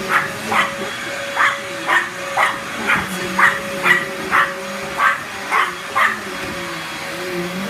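Small dog barking in quick, high yaps, about two a second, at a running upright vacuum cleaner whose steady hum goes on underneath; the barking stops about six seconds in.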